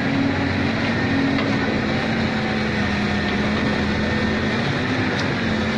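Heavy diesel engine running steadily at a constant speed, holding a low, even pitch.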